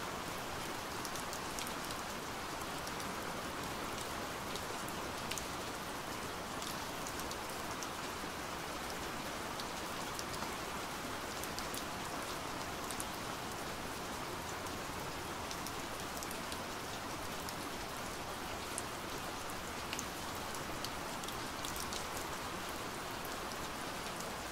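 Steady rain from an approaching thunderstorm: an even hiss with scattered sharp ticks of single drops.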